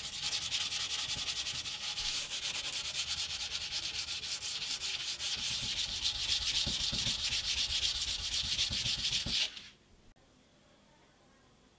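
Rapid back-and-forth hand sanding of a steel knife blade clamped in a vise: a flat abrasive bar rubbed fast along the blade in a dense, hissy scraping rhythm. It stops abruptly near the end, leaving faint room tone.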